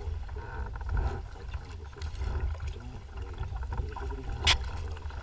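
Wind buffeting the microphone with an uneven low rumble, over choppy lake water splashing against a kayak's hull; one sharp knock about four and a half seconds in.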